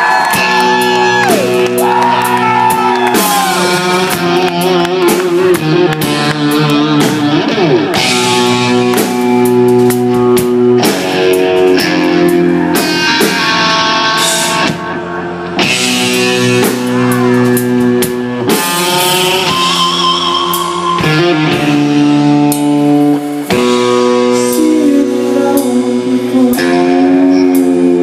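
Hard rock band playing live, with electric guitar, bass and drum kit: sustained guitar notes over drums with cymbals.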